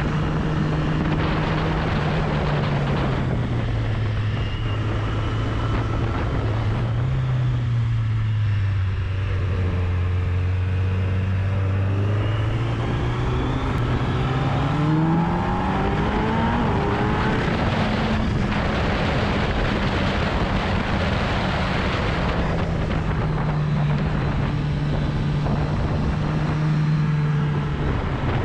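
Sport motorcycle engine heard from on board with wind rushing past. The revs drop over the first several seconds as the bike slows and stay low, then climb about halfway through as it accelerates, and hold steady after that.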